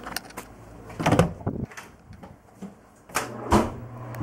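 Handling noise from a handheld camera being carried about: a couple of dull thumps about a second in and a sharper knock a little after three seconds.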